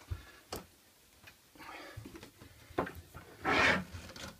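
Steel bar clamps handled on a wooden workbench while a clamp is re-set and its screw tightened: a few light clicks and knocks, then a short scraping slide about three and a half seconds in.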